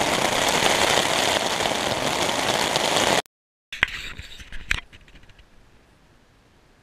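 Heavy rain, a dense steady hiss, which cuts off abruptly about three seconds in. After a brief gap come a few faint knocks, then quiet.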